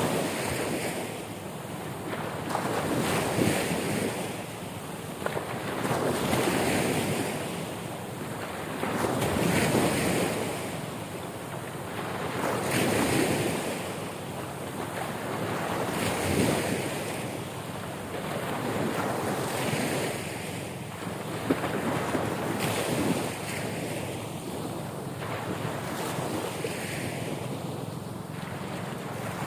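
Ocean waves washing in, the surf swelling and falling back about every three seconds, with wind noise on the microphone.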